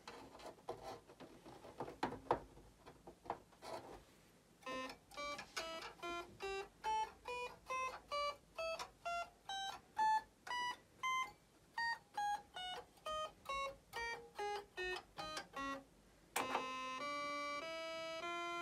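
Bontempi Memoplay 26 toy electronic organ: a few clicks from its switches and keys, then single notes played one at a time, about two a second, stepping up and down the scale. Near the end a continuous run of joined notes begins.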